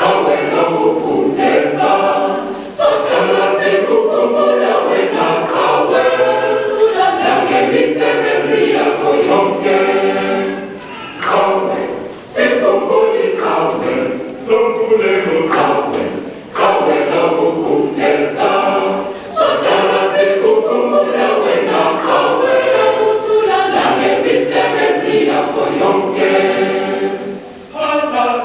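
A mixed choir of women's and men's voices singing unaccompanied in parts, in long phrases with short breaks between them.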